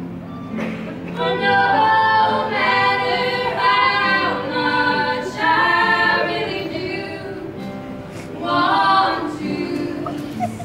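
Two women singing in harmony with an acoustic guitar, heard live in a hall. The voices enter about a second in, break off briefly near the middle, and come back for a short phrase near the end.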